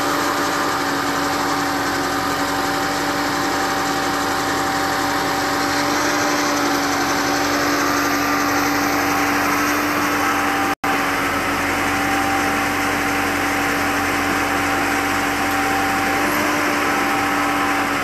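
Engine of a tracked aerial boom lift running steadily, a constant hum with a few steady tones. The sound drops out completely for an instant about eleven seconds in.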